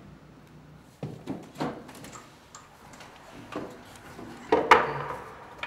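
Work and handling noises: scattered short knocks and clatter, about half a dozen in irregular succession, the loudest a little before the end.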